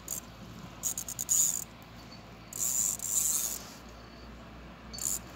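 Fishing reel whirring in three short bursts of about a second each while a hooked fish is played in.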